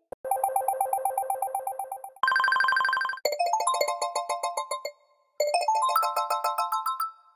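Synthesized mobile phone ringtones: a fast warbling two-note trill, then a louder, buzzier trill for about a second, then quick rising runs of bright electronic notes that break off about halfway and start again.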